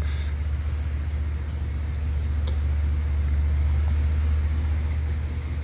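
Steady low rumble under a faint even hiss.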